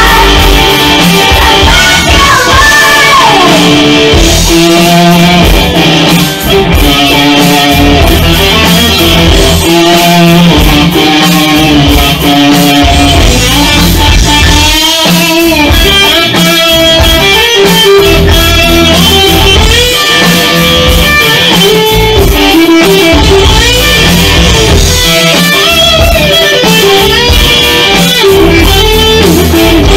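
Live rock music from a band rehearsal: an SG-style electric guitar played loud through an amplifier, carrying melodic lines over a steady, heavy low-end beat.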